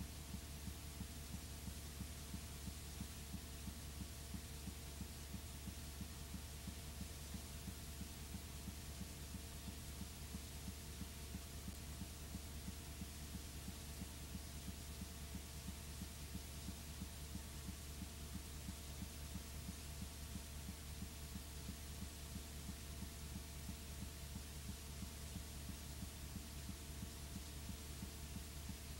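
Steady low electrical hum with faint steady whine tones and hiss, unchanging throughout: the background noise of the recording, with no other sound.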